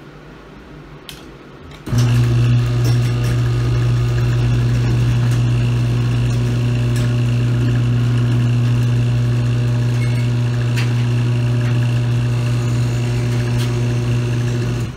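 Electric garage door opener running while the sectional door rolls up: a loud, steady motor hum with occasional clicks and rattles from the door and its rollers. It starts about two seconds in and stops near the end, as the door reaches the top.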